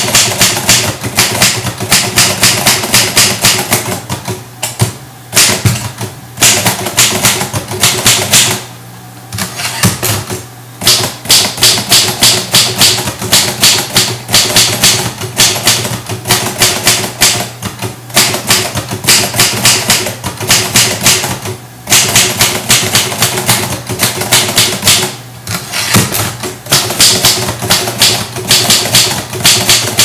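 Manual typewriter converted to a USB keyboard, typed on fast: quick runs of sharp key strikes with a few short breaks.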